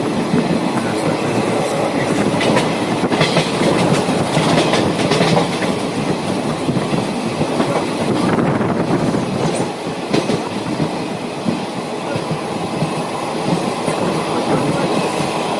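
Raw track sound of a moving passenger train heard from inside a coach: a steady rumble of wheels on the rails, with sharper clicks from time to time as the wheels cross rail joints.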